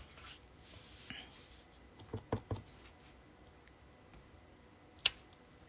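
A few soft taps and clicks of a clear photopolymer stamp and card stock being handled on a craft mat, while the stamp is inked and pressed onto the paper. Three light taps come close together about two seconds in, and a sharper click about five seconds in.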